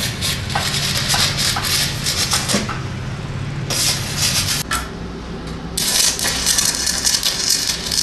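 Stick (arc) welding on a truck axle housing: the crackling hiss of the arc, which breaks off twice and starts again, over a low steady hum.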